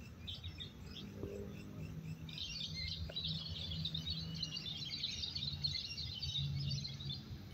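Many caged songbirds at a bird-singing contest chirping and twittering at once. It is sparse at first, then thickens into a dense chorus about two seconds in. A low steady hum runs beneath.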